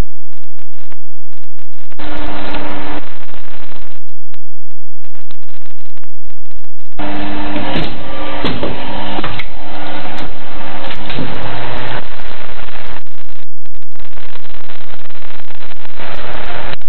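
Vertical injection molding machine running: its electric motor and hydraulic pump give a loud, steady hum that swells and drops several times as the machine works through its cycle, with a few sharp clicks and knocks.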